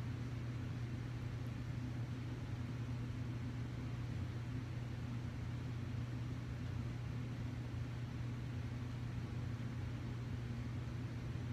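Steady low hum with a faint hiss, unchanging throughout: room background noise.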